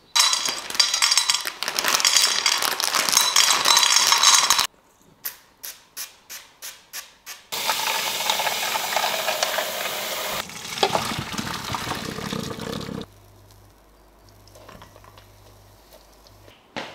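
Mince frying and sizzling in a pan while it is stirred, cut together in short pieces. In the middle comes a run of about nine sharp knocks, roughly three a second, and near the end it drops to a faint low hum.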